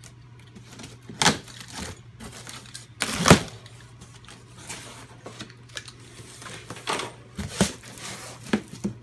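Cardboard shipping box being opened by hand: scattered sharp knocks and scrapes of the cardboard flaps and packing tape, the loudest about three seconds in.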